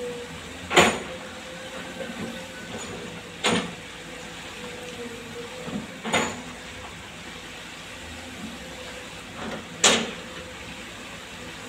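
Kobelco hydraulic excavator running with a steady hum, punctuated by four sharp metallic clanks a few seconds apart as it works its bucket through soil.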